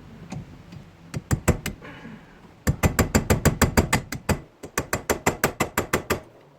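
Rapid hammer blows on a roll pin punch, metal on metal, trying to drive out the stuck pin of a 1965 Ford Thunderbird's shifter lever. A few strikes come first, then a fast run of about five blows a second with a brief pause partway through. The pin is not budging.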